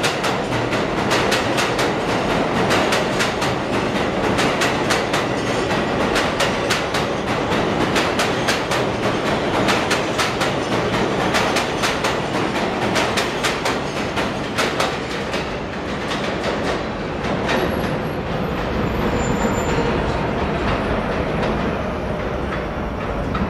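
New York City Subway 6 express train running past a station platform at speed without stopping: a steady rumble of steel wheels with rapid clickety-clack over the rail joints. The clatter thins out in the second half as the last cars go by, with a few brief high wheel squeals near the end.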